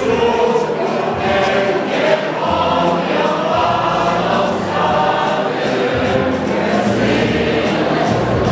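Mixed choir of men's and women's voices singing a song in parts, continuously and without a break.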